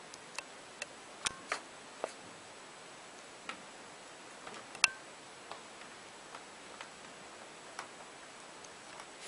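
About a dozen light, irregular clicks and taps, the loudest almost five seconds in and two more about a second and a half in, a few with a short ring.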